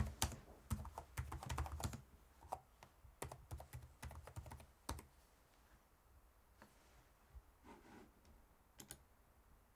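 Typing on a computer keyboard: quick runs of keystrokes that thin out after about five seconds to a few isolated key taps.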